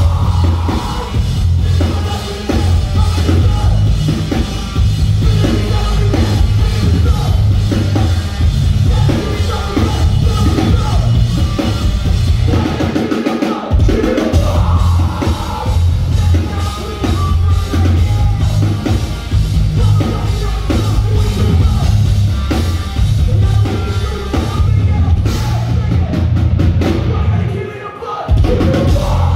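Loud live rock band with heavy pulsing bass, drum kit and a vocalist singing and yelling into a microphone. The bass drops out briefly about halfway through and again near the end.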